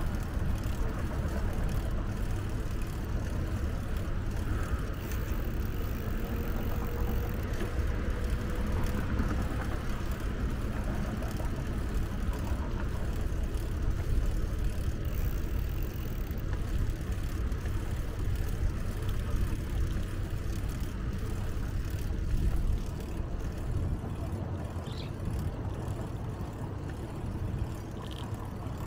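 A continuous low rumble of road and traffic noise heard from a moving bicycle. Near the end come two brief high chirps.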